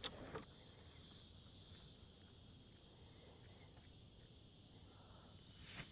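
Faint, steady, high-pitched insect chirring over near silence, with a couple of soft clicks at the start.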